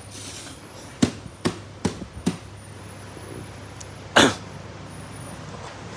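A cardboard product box being handled on a tiled floor: four light knocks in quick succession about a second in, then one louder, short noisy burst about four seconds in.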